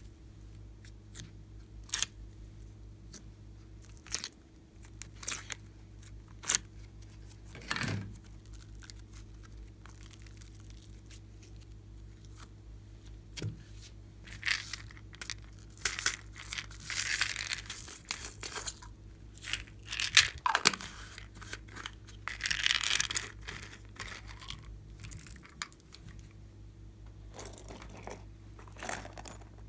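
Slime being peeled out of plastic moulds and dropped into a glass dish of slime: scattered sharp clicks and sticky crackling, growing into a denser tearing crackle about halfway through.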